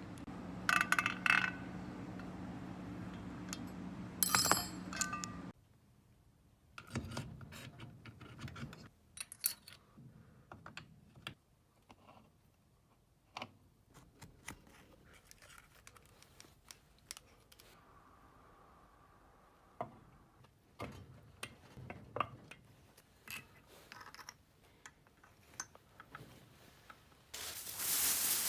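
Scattered clicks and clinks of small metal parts and hand tools being handled. A steady hum runs for the first few seconds and cuts off suddenly, and a loud hiss starts near the end.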